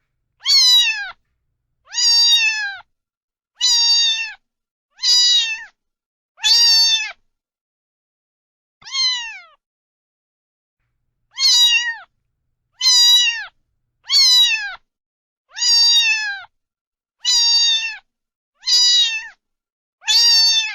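A domestic cat meowing over and over, short calls of about half a second roughly every second and a half, each bending down in pitch at the end. There is a pause in the middle broken by one quieter meow.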